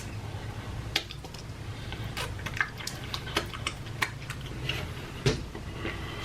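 Close-up eating sounds of cheese curds being chewed, with scattered wet clicks and smacks over a low steady hum.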